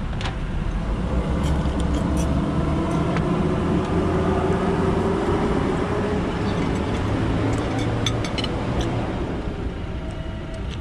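Steady low rumble with a faint hum, typical of nearby motor traffic. Scattered light clicks and clinks of cutlery and shells on plates sit on top of it.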